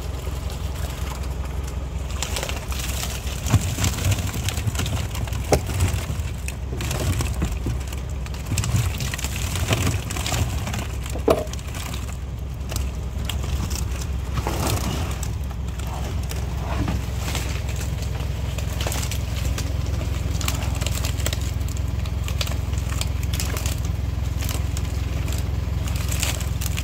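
Knocks and clatter of live tilapia being handled, moved from the transport drums into a plastic crate, with several sharp hits in the first half, over a steady low hum.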